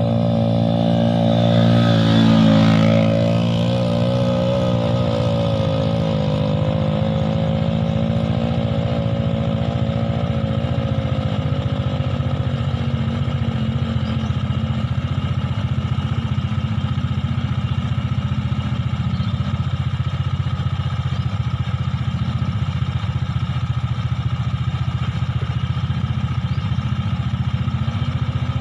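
Small four-stroke underbone motorcycle engine passing close by about two seconds in, its pitch dropping as it goes past. Behind and after it, a steady engine drone that does not fade as the rider draws away, another motorcycle engine running on.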